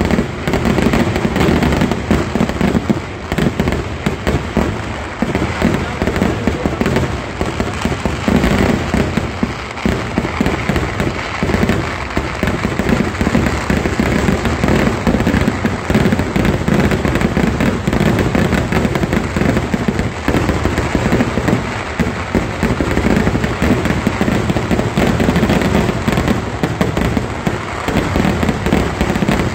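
Fireworks going off in a dense, rapid barrage of firecracker bangs and crackling, loud and without a break.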